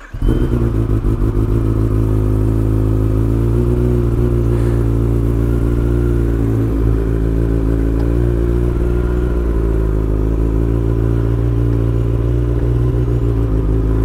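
Kawasaki ZX-10R's inline-four engine with an aftermarket exhaust running loud and steady at low revs as the bike rolls slowly along, its pitch holding nearly level.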